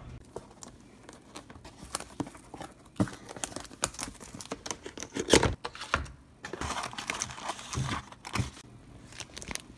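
Plastic shrink-wrap and packaging crinkling and tearing as a boxed desktop hard drive is unwrapped, then plastic bags rustling inside the box. Irregular sharp crackles and clicks throughout, the loudest burst a little past halfway.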